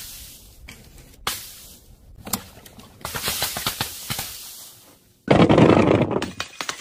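A few sharp pops as paint-filled balloons burst on paving tiles, followed by a crackling hiss. About five seconds in, a sudden loud rattling rumble of glass jars rolling and clattering on a wooden board, fading near the end.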